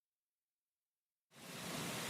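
Dead silence for about a second, a gap in the rain track, then steady rain hiss fading back in quickly.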